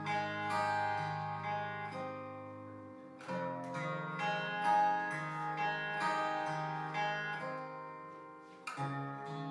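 Slow acoustic guitar music: plucked notes ring on over held low bass notes, with a new phrase starting about three seconds in and another near the end.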